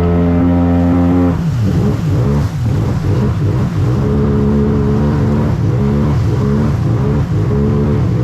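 Jet ski engine running at high, steady revs, then the throttle comes off about a second in and the revs drop and rise unevenly.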